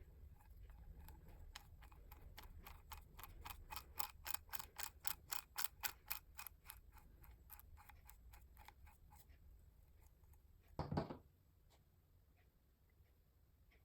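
Manual hand drill being cranked, with a steady run of rhythmic clicks at about five a second that grows louder, then fades out, followed by a single thump about eleven seconds in.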